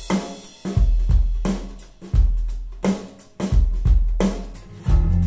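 A rock song with a drum kit playing over a deep bass line, played back through CSS Criton 1TDX DIY bookshelf speakers. Heavy kick and snare hits fall unevenly, roughly every half second to second and a half.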